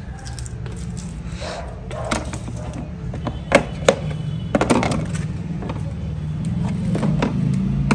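A screwdriver scrapes and pries at the plastic inner panel of an electric scooter, making plastic clicks and knocks, with two sharp clicks a little past the middle. A steady low hum runs underneath.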